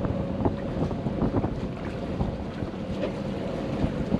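Wind buffeting the microphone at a catamaran's bow, over a faint steady hum, with scattered light knocks.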